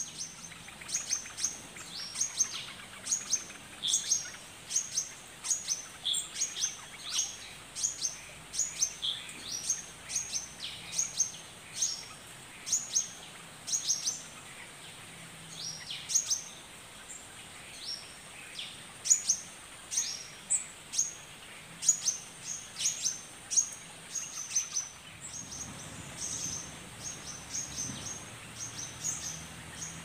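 Stripe-throated bulbul singing: a continuous run of short, sharp, high notes, about two a second.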